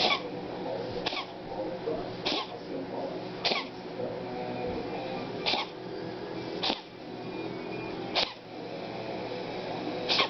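A pet sneezing over and over: about eight short, sharp sneezes, a second or two apart.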